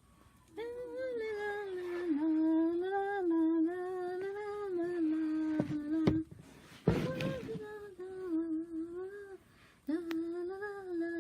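A person humming a slow tune in long held notes, in three phrases with pauses between them. A short sharp noisy burst breaks in a little after the middle.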